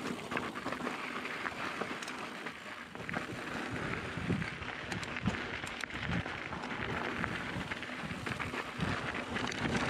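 Mountain bike rolling along a rocky dirt trail: a steady crunch of knobby tyres on gravel, with small clicks and knocks from the bike over bumps.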